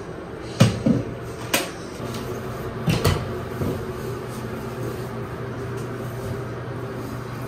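A few knocks and clunks of a plastic shower caddy full of toiletry bottles being set down and handled. There is a pair about half a second in, another at one and a half seconds, and the loudest about three seconds in.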